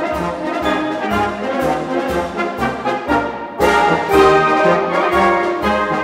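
Military band with brass to the fore playing an instrumental song arrangement in F major: trombones, horns and trumpets carry the tune over bass notes about twice a second, with a fuller, louder entry about three and a half seconds in.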